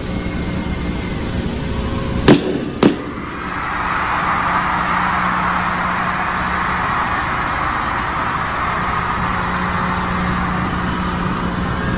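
Arena concert crowd screaming and cheering, swelling a second after two sharp cracks about half a second apart, and holding loud as the performer takes a glove from the briefcase.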